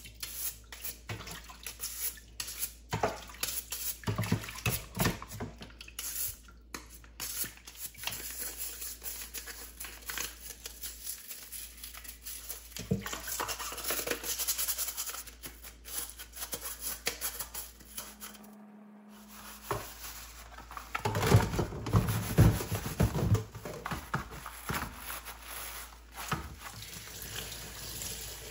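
Dishwasher parts being scrubbed with a brush and rinsed at a sink: irregular brushing strokes, splashing water and clattering. There is a short break about two-thirds through, followed by louder knocking and clatter.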